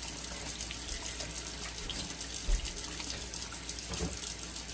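Kitchen faucet running into a stainless steel sink while hands are washed and rubbed under the stream, a steady splashing with a brief thump about halfway through.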